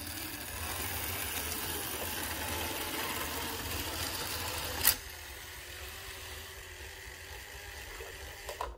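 Märklin DA 800 model steam locomotive and its passenger coaches running on metal track: a steady whirring of the electric motor and running gear. One sharp click about five seconds in, after which the running sound is quieter.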